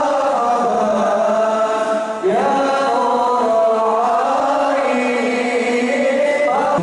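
Melodic vocal chanting with long held notes that glide up and down in pitch.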